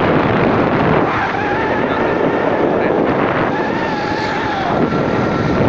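Wind buffeting the microphone of a moving motorcycle, over the running of its engine. A held tone sounds on top from about a second in until nearly five seconds.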